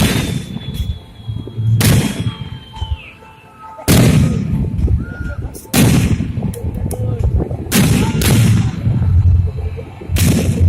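Aerial fireworks shells bursting, a sharp bang every second or two, each followed by a low rumbling boom that echoes away.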